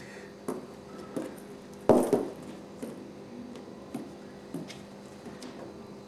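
A cat pawing at a cardboard box after a ping pong ball inside it: light scattered knocks and scrapes on the cardboard, with one louder thump about two seconds in.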